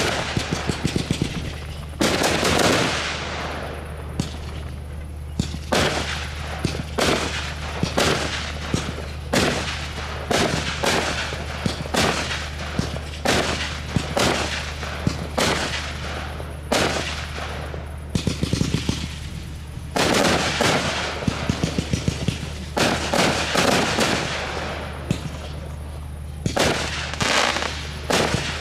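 Fireworks display: a rapid, irregular series of sharp bangs, sometimes several a second, with stretches of crackling bursts.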